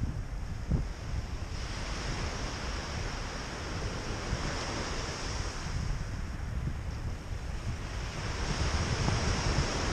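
Small waves breaking and washing up a pebble beach, the surf swelling louder about a second and a half in and again near the end. Wind buffets the microphone throughout.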